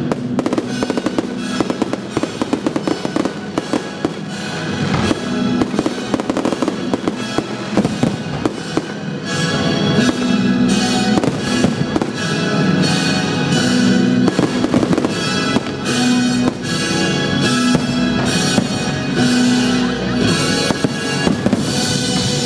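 Fireworks bursting and crackling in rapid, continuous succession, over loud music with a steady beat.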